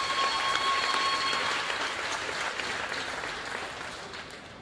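Spectators applauding, a dense clatter of clapping that dies away over about four seconds. A steady high tone with overtones is held through the first second and a half.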